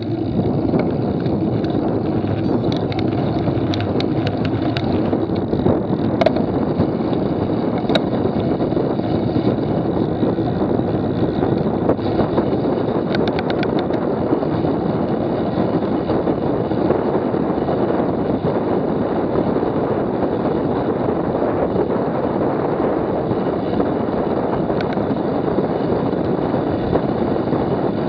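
Steady wind rush on the microphone of a camera moving along a road, mixed with road noise, with a few faint clicks in the first several seconds.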